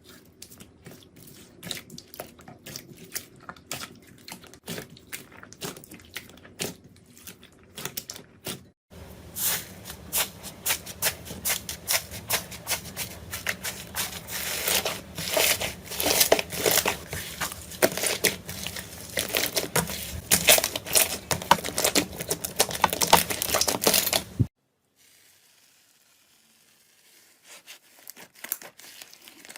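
Slime being squeezed and stretched by hand, giving a dense run of crackling pops and clicks. The crackling is softer at first, grows louder and denser after a cut about nine seconds in, stops suddenly near the end, and a few faint clicks follow.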